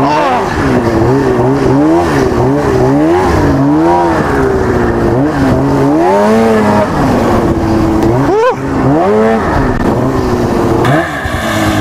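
Arctic Cat snowmobile's two-stroke engine revving up and down again and again as the rider works the throttle through deep snow. There is a sharp quick rev about eight and a half seconds in.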